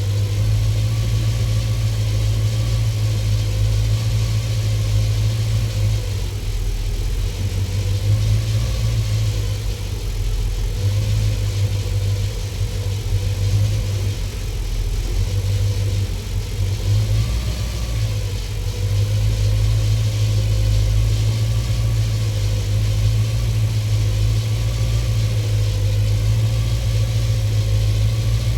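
Supercharged 273 V8 (4-71 blower) idling steadily while carb cleaner is sprayed around a suspected vacuum leak, the idle wavering slightly at several points.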